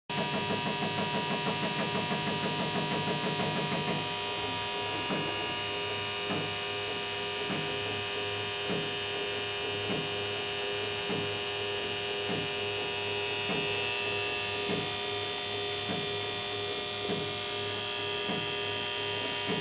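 Homemade CNC hot wire foam cutter at work: its stepper motors whine and step over a steady electrical hum. The stepping is a rapid pulsing for the first four seconds, then a soft tick about every second and a quarter.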